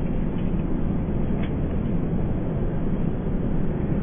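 Steady low rumbling background noise with no distinct event, and one faint click about one and a half seconds in.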